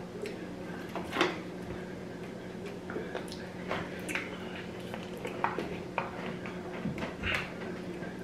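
Eating and handling sounds at a meal table: chewing and scattered small clicks and taps from a plastic water bottle and food being handled, the loudest about a second in, over a steady low hum.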